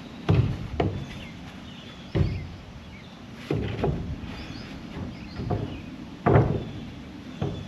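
A series of irregular knocks and thuds, about eight, the loudest shortly after the start and about six seconds in, over a steady low hum.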